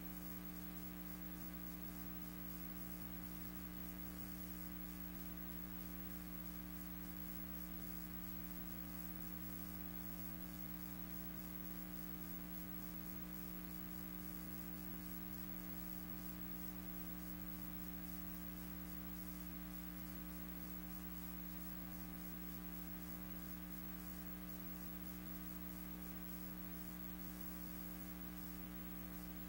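Steady electrical mains hum with a light hiss, the same throughout with no events in it: the background noise of a silent archival film transfer. The pictured troops and gun make no sound.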